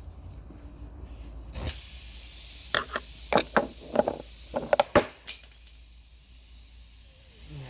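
Air hissing steadily out of a punctured tyre, starting suddenly, with a run of sharp clicks and taps from the plug tool being worked in the hole.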